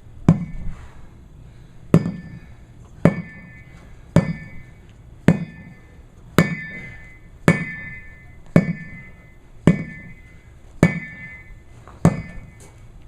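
Sledgehammer blows on a tire, eleven strikes at a steady pace of about one a second. Each thud carries a short metallic ring from the hammer.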